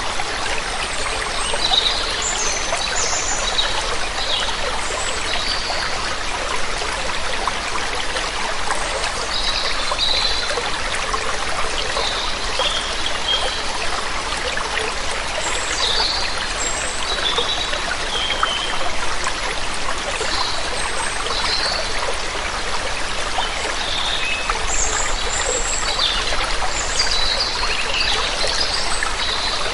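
Waterfall rushing steadily, with small birds chirping briefly and often above the sound of the water.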